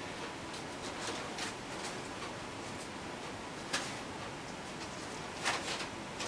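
Quiet room tone with a steady hiss, broken by a sharp click about halfway through and a short rustle near the end.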